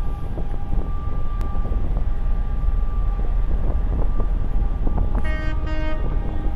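Steady low rumble of a loaded container ship passing close by, mixed with wind buffeting. About five seconds in, a short horn toot sounds in two quick parts.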